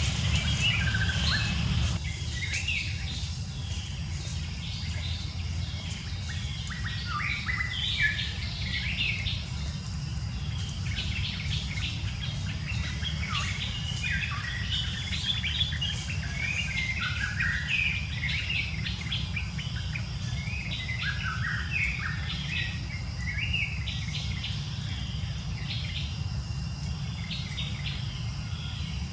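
Many small birds chirping and calling, overlapping, over a steady low rumble that eases off about two seconds in.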